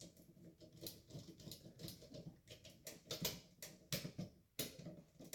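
Faint, irregular small clicks and scrapes of wires being fastened to the terminals of a four-way light switch.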